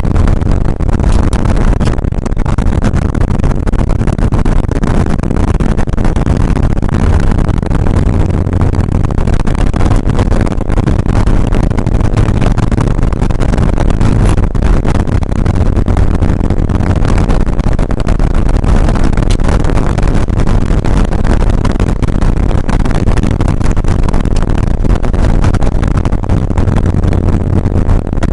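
Air-cooled 3.0-litre flat-six engine of a 1981 Porsche 911SC running at speed, heard loud and steady from inside the car's cabin.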